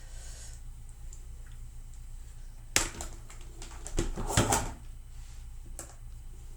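Handling sounds from flat ironing hair: a sharp click about three seconds in, a short rustling clatter a second later, and another click near the end, over a low steady hum.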